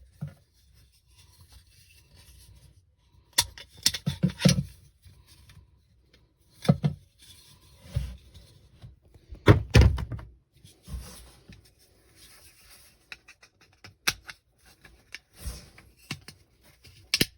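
Handling noises: irregular knocks and thunks with rubbing and scraping, the heaviest cluster of knocks about halfway through and sharp single knocks near the end.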